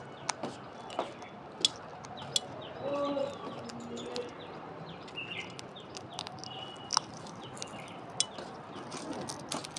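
Alexandrine parakeet giving a few soft, short high chirps amid many sharp clicks and cracks of its beak working at food. A brief low vocal sound comes about three seconds in.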